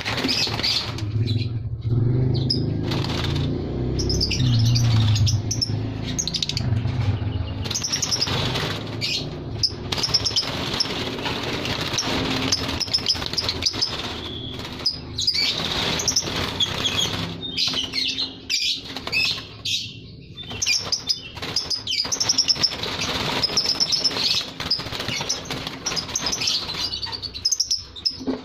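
Lovebirds chirping with many short, high calls throughout, with wings flapping and fluttering against the wire mesh. A low rumble runs under them for the first seven seconds or so.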